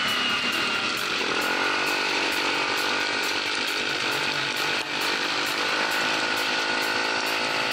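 ATV engine running hard, its pitch climbing twice as it accelerates: about a second in and again near six seconds, with a brief dip just before the second climb.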